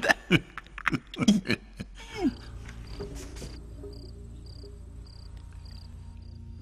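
Men laughing for about the first two seconds, then crickets chirping: short, high chirps repeating about twice a second over a low steady hum.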